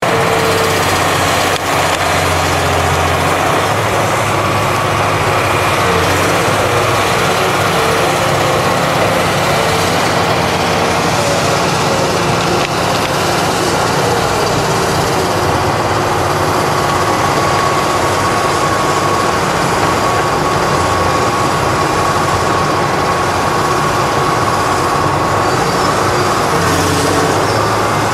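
Harvestline mobile cable yarder running steadily, hauling its grapple carriage along the skyline: a loud, continuous engine drone with a faint steady whine above it in the second half.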